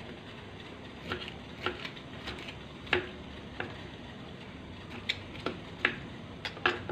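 Kitchen knife chopping pineapple on a wooden chopping board: about ten sharp, uneven knocks of the blade on the wood, coming closer together near the end.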